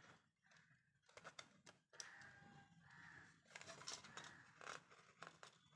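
Faint scattered clicks and taps of small plastic parts being handled as a spring and silicone rubber button are fitted into a plastic brush-cleaner housing.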